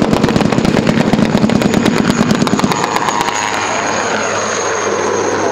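A rapid string of pyrotechnic bangs like machine-gun fire for about the first three seconds, mixed with an Alouette helicopter making a fast low pass. The helicopter's rotor and turbine carry on afterwards with a high steady whine.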